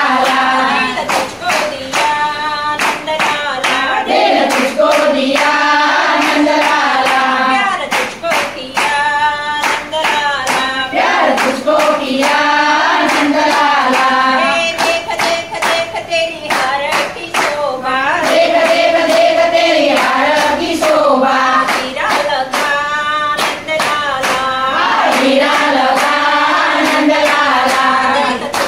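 A group of women singing a Hindi devotional bhajan together, clapping their hands in a steady beat.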